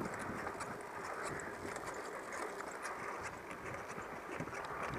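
Road bike rolling along a tarmac lane: a steady hiss of tyre and wind noise, with scattered light ticks and rattles.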